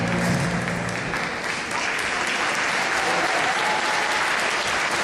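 Rumba music stops about a second in, and the audience applauds steadily.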